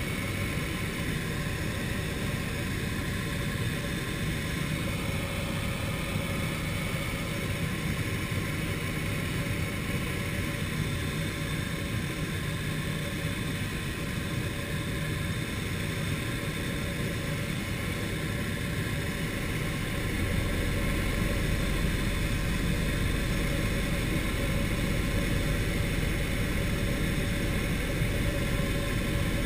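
Turner T-40 light aircraft's piston engine and propeller droning steadily in flight, heard from inside the small cockpit with wind noise. About twenty seconds in, the low rumble grows louder and deeper.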